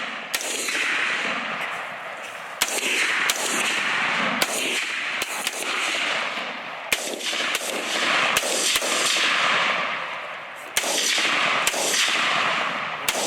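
Rifle fire at a wild hog: about fifteen shots in quick, uneven succession, roughly one a second. Each shot is followed by a long rolling echo that fills the gaps between them.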